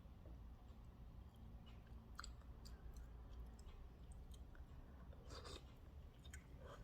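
Faint chewing with scattered small clicks, over a steady low hum. A louder cluster of eating sounds comes about five seconds in.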